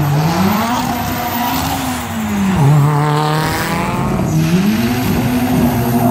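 Racing car engine revving hard. Its pitch climbs, drops sharply about halfway, holds, then climbs again near the end.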